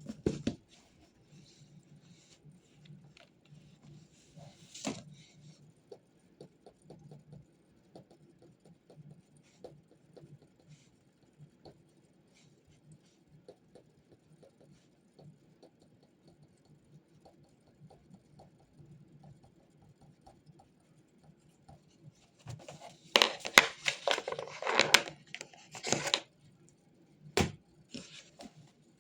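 Desk sounds of someone studying: faint scratching and light taps of writing, then a few seconds of loud paper rustling and handling near the end, followed by a single sharp knock.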